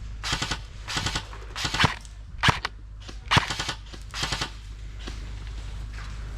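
Airsoft guns firing about six short bursts of rapid shots over the first four and a half seconds, then going quiet.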